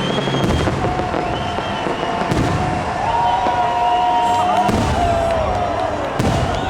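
Fireworks going off: several sharp bangs over a steady din of pops and crackling.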